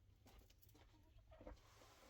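Near silence, broken by a few faint small knocks and rustles.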